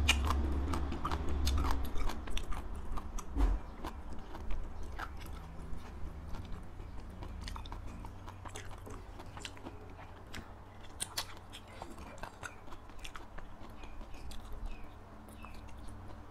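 Close-miked chewing: wet mouth clicks and smacks from a person chewing a mouthful of food. A low rumble sits under it in the first couple of seconds.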